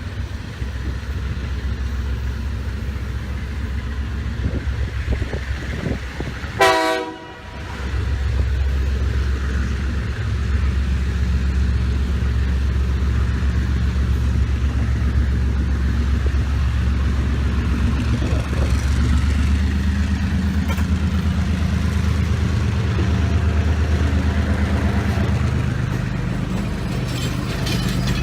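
Sri Lanka Railways Class M2c diesel locomotive's engine running under load as it pulls a train away, louder from about eight seconds in as it throttles up. One short horn blast sounds about seven seconds in.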